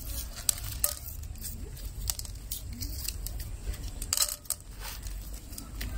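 Rolls of Mentos mints being torn open by hand, wrappers rustling and tearing, with scattered sharp clicks as the mints drop into a glass bowl.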